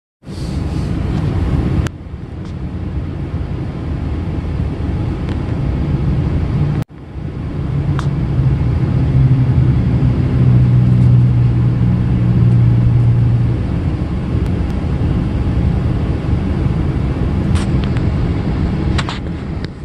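Low motor-vehicle rumble with a steady engine hum that swells and then eases off, broken by abrupt cuts about two and seven seconds in.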